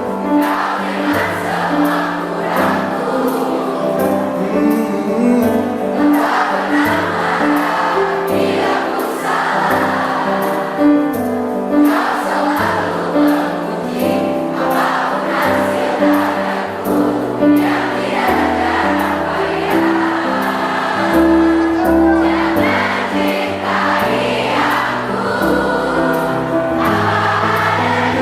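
A concert crowd singing along together with a live band, loud and full like a choir.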